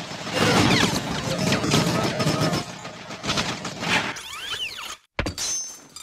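Film sound effects of the Green Goblin's jet glider: a dense rushing, jet-like noise mixed with crashes and thuds, then a few falling whistling sweeps about four seconds in, cut off suddenly about five seconds in.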